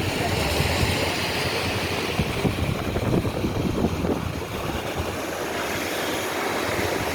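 Sea waves surging and breaking against rocks: a steady wash of noise with a low rumble.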